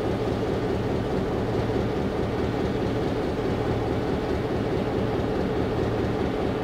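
Nickel Plate Road No. 514's diesel locomotive engine idling steadily, a continuous low drone.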